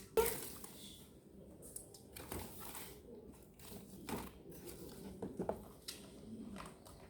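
Handling noises from toys being unpacked: plastic pieces and packaging rustling, crinkling and clicking, with a sharp knock just after the start and a few smaller knocks scattered through.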